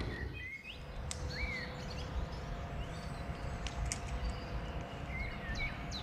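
Outdoor lakeside background with a few short bird chirps over a low rumble and a faint steady hum, with a couple of faint clicks.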